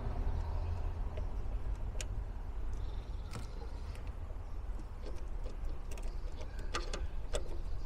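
Pliers gripping and twisting a brass fuel inlet spigot in a cast aluminium Weber carburettor body, giving a few sharp metallic clicks, several close together near the end, over a steady low rumble.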